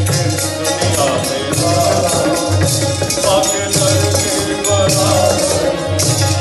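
A man singing into a microphone, his voice amplified, over a hand drum beating a steady rhythm and rattling percussion.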